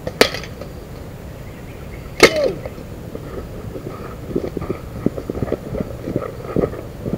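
Two slingshot shots striking the target about two seconds apart, sharp smacks, the second louder with a short ring. After that, footsteps crunching on a leafy dirt path as the shooter walks up to the target.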